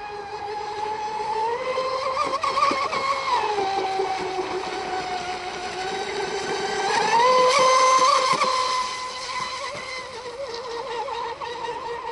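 Radio-controlled mono racing model boat running at speed, its small motor giving a high-pitched whine that rises and falls in pitch as the throttle changes around the course. It is loudest about two-thirds of the way through.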